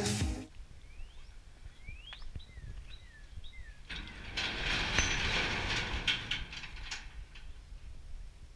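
A small bird chirping a series of short calls, some gliding up and some down, followed by a rushing noise with scattered clicks.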